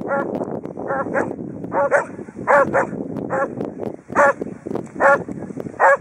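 Bearded collies barking while they play, about ten short, sharp barks at irregular intervals.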